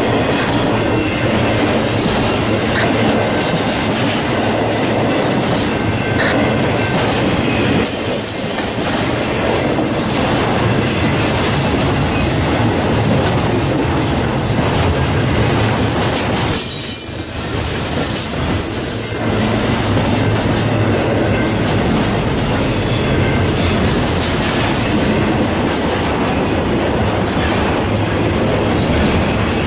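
Intermodal freight train's cars passing close by: steel wheels running on the rails in a steady, unbroken noise, with a few brief high wheel squeals.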